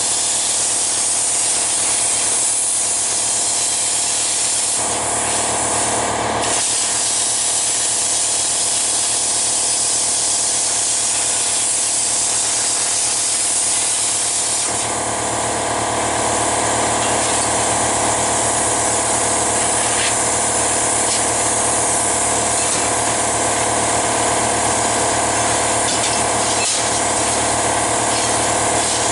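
Handheld plasma cutter's torch hissing steadily as it cuts through 14-gauge sheet steel, over a steady hum. The hiss changes tone about halfway through.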